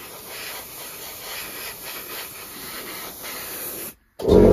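Airbrush spraying thinned acrylic paint at about 25 psi: a steady hiss. Near the end it cuts out for a moment and the air compressor kicks in, a much louder steady hum.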